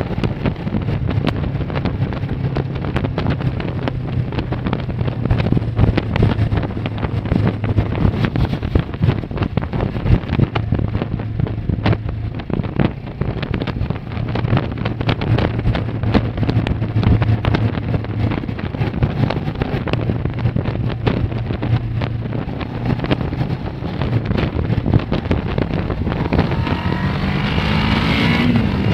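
Kawasaki ER-6n's parallel-twin engine running at a steady cruise, with wind buffeting the microphone. Near the end the engine note rises as the bike accelerates.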